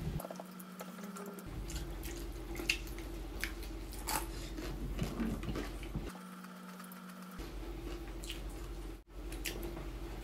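Close-up eating sounds from people chewing fried chicken: wet chewing and lip smacks with scattered small clicks. A steady low hum runs underneath and drops out twice.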